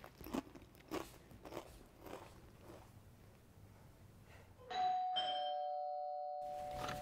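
A two-note doorbell chime: a higher ding followed by a lower dong, both ringing on and slowly fading, about three quarters of the way in. Before it, only a few faint soft taps and rustles.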